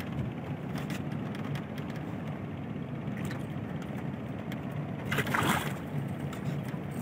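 A hooked fish splashing hard at the water's surface for about half a second, a little past the five-second mark, over a steady low motor hum.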